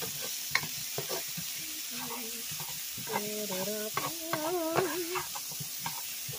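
Brussels sprouts, broccoli and mushrooms sizzling in oil in a skillet while they are stirred and tossed, with a utensil clicking and scraping irregularly against the pan. A voice sounds briefly in the background from about three seconds in.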